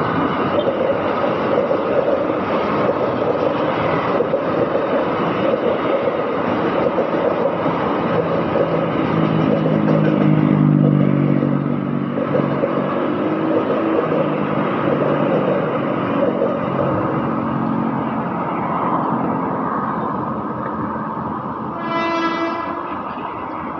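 Electric commuter train passing with a steady rumble of wheels on rail. A deeper pitched tone swells for a few seconds midway. Near the end the train horn gives one short toot, a driver's greeting.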